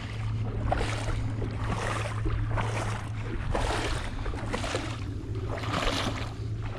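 Footsteps swishing through thick grass, about one step a second, over a steady low hum.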